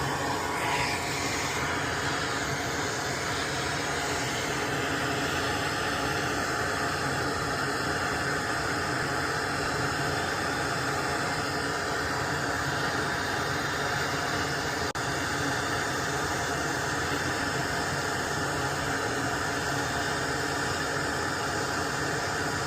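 Small electric blower running steadily with an even hiss.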